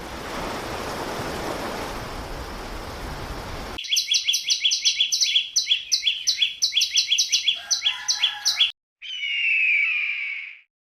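A steady hiss of noise for nearly four seconds, then a fast series of high chirps, about five a second, followed by a longer call falling in pitch.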